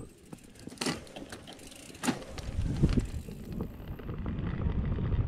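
Mountain bike setting off down a dirt singletrack: tyres rolling over dirt, with bike parts rattling and two sharp clicks about one and two seconds in. A low rumble of tyre and wind noise grows from about two and a half seconds in as the bike picks up speed.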